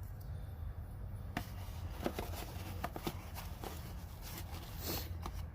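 Hands handling a headlight bulb case and its box: scattered light clicks and rustles over a steady low hum.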